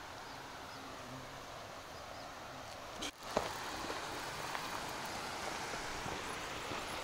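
Steady outdoor background noise on a moving action camera's microphone. About three seconds in it drops out briefly and there is a sharp click. After that come light, scattered ticks of footsteps on a dirt trail.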